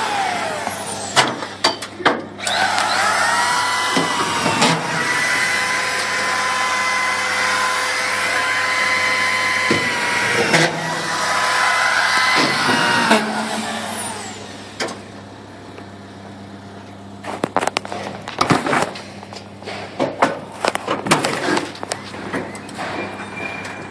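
An electric motor whining at one steady pitch in two long runs, spinning up at the start and winding down at the end of each; in the last third it falls quieter, with scattered clicks and knocks.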